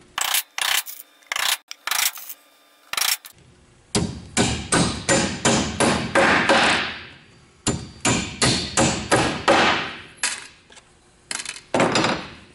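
Claw hammer driving 6-penny box nails into the pre-drilled corner joints of a wooden Langstroth hive box: a few separate taps at first, then runs of quick strikes as each nail goes home.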